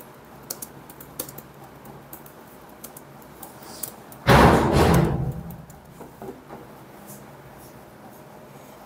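A sudden loud thump about four seconds in that dies away over about a second, among faint scattered clicks and taps in a quiet room.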